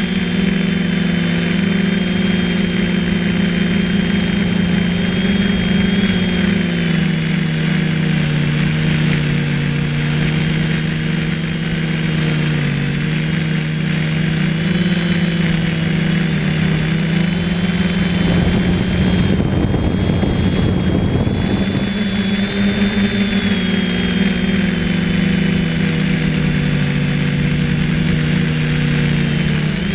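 Multirotor drone's electric motors and propellers whining steadily, heard from the camera on the drone itself, the pitch drifting up and down as the motors change speed. A rush of noise covers it for a few seconds past the middle.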